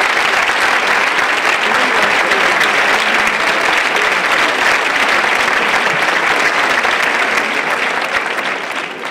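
Large theatre audience applauding steadily, the clapping dying down near the end.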